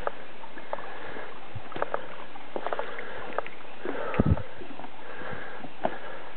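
Footsteps and brushing through undergrowth on a steep, rocky jungle trail, with scattered light knocks over a steady background hiss. A heavy thump about four seconds in.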